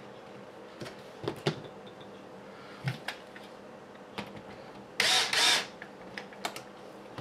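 Small plastic and metal RC kit parts clicking and tapping as they are handled and fitted together, with a brief louder scraping rustle about five seconds in.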